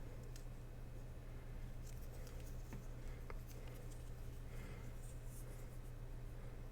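Faint handling sounds of the earphones and their plastic and cardboard packaging: scattered small clicks and light rustles, over a steady low hum.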